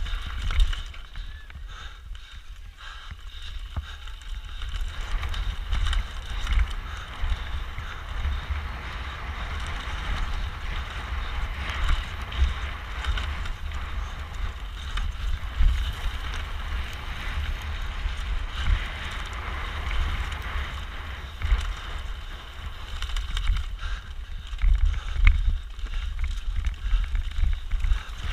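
Mountain bike descending fast on a rough trail: wind buffets the onboard camera's microphone with a low rumble, over a steady hiss of tyres on the ground and frequent rattles and knocks from the bike.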